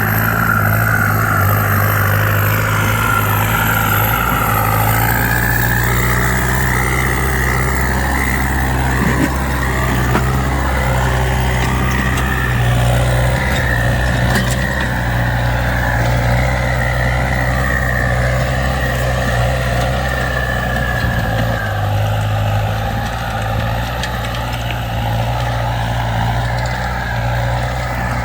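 Kubota M9540 tractor's diesel engine running steadily under load while ploughing, with a higher whine over it that wavers in pitch and fades out about three-quarters of the way through.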